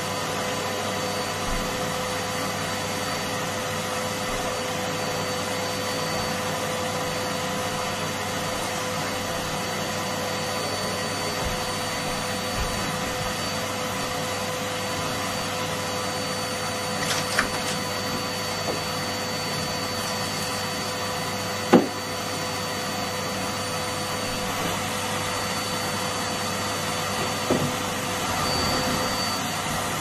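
Numatic Hetty canister vacuum cleaner running steadily, a constant motor hum with a high whine as the nozzle works over a shaggy rug. A few short knocks come from the nozzle and hose, the sharpest about three-quarters of the way through.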